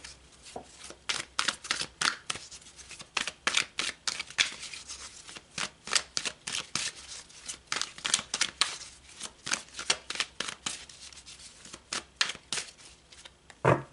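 Deck of oracle cards being shuffled by hand: a quick, irregular run of short card flicks and slaps, several a second, with one louder knock near the end.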